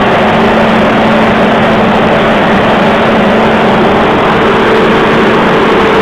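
Large TECO tower corn dryer running: a loud, steady machine hum over a dense rushing noise, with a second, higher steady tone coming in about four seconds in.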